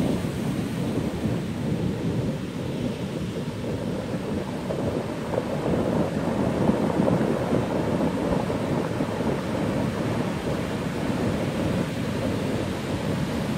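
Ocean waves breaking and washing in as whitewash, a steady, continuous rush of surf noise that is heaviest in the low range.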